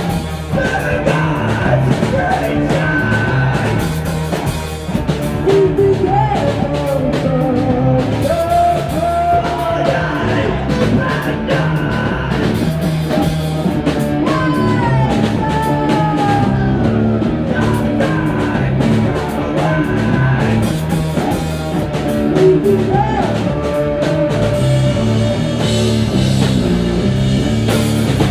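Live rock music from an electric guitar and a drum kit, with a woman singing over them.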